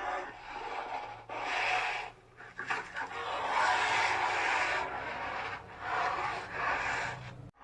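Polar bear making harsh, breathy rasping huffs, several bursts each about a second long with short gaps between.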